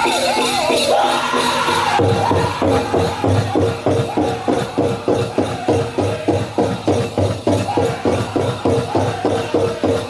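Powwow drum group singing a chicken dance song over a big drum. About two seconds in the sound shifts abruptly to a fast, steady drumbeat of about three beats a second, with the singers' voices over it.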